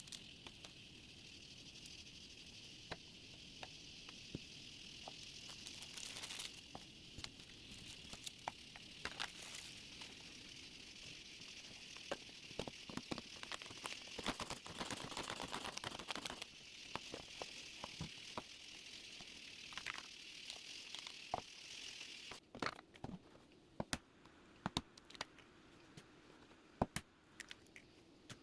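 Rustling, crinkling handling sounds with many small clicks over a steady high hiss; the hiss stops suddenly about 22 seconds in, leaving scattered clicks.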